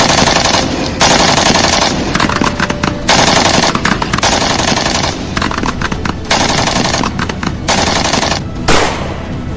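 Machine-gun fire sound effects in repeated rapid bursts, each about a second long with short gaps between them, dubbed over prop rifles. One single loud bang stands out near the end.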